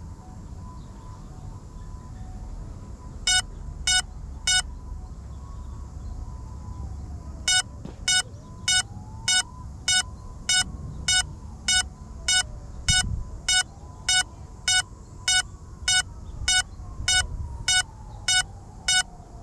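An FPV drone's lost-model beeper sounding after the drone has come down: three short beeps, then a steady run of beeps a little slower than two a second. A low rumble runs underneath.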